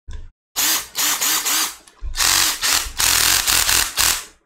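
Ryobi 18V ONE+ cordless drill/driver running with its torque clutch slipping, a rapid ratcheting clatter, as it reaches the set torque. It comes in three bursts: a short one at the start, then two longer ones, the last the longest.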